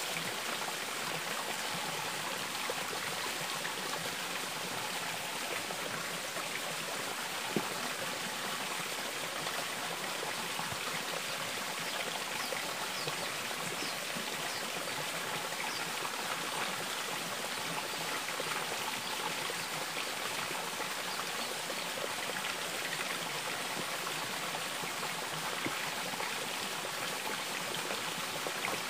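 Running water flowing steadily over rocks, an even rushing sound throughout, with a single short knock about seven and a half seconds in.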